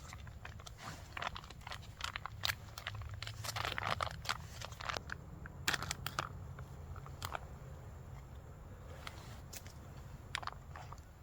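Crinkling and crackling of a foil ration meal pouch being handled and opened, in quick irregular crackles that are busiest in the first half and thin out toward the end.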